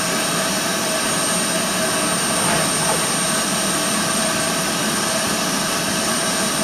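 Steam locomotive GWR Hall Class 4-6-0 No. 4953 standing at the platform, letting off steam in a loud, continuous, even hiss.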